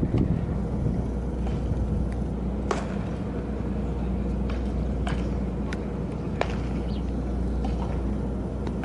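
Outdoor baseball-practice ambience: a steady low rumble with a few scattered sharp cracks, the clearest about three seconds in.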